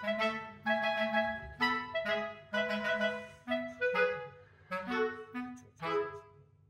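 Light background music: a tune of short, separate notes over a bouncing bass line, about two notes a second.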